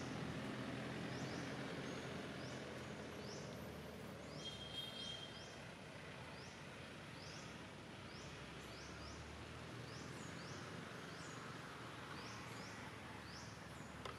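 Outdoor forest ambience: a bird repeats a short high chirp that drops in pitch, irregularly, about once or twice a second, over a steady background hiss. A brief higher call of several tones comes a little after four seconds.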